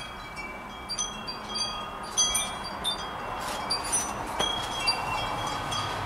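Wind chimes tinkling irregularly, with short ringing notes at a few fixed pitches, over a faint steady rushing background.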